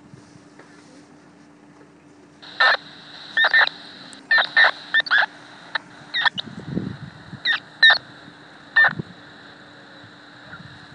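Scanner receiver playing an unidentified radio signal: a steady hum and hiss, then from about two and a half seconds in, about a dozen short chirping tone bursts at irregular spacing.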